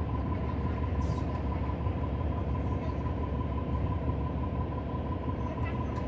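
Cabin of a 2019 New Flyer XD40 transit bus on the move: steady low rumble from its Cummins L9 diesel engine and the road, with a constant high-pitched tone throughout and one short click about a second in.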